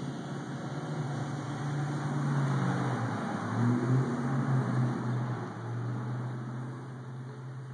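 A motor engine running steadily with a low hum, growing louder and wavering in pitch a couple of seconds in, then easing off a little.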